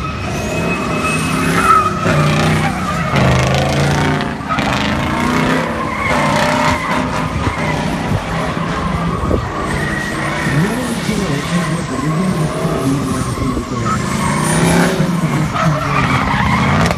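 Nissan Skyline R33 with a swapped-in Ford diesel V8, drifting: the engine revs up and down over and over, with tyres skidding and squealing throughout.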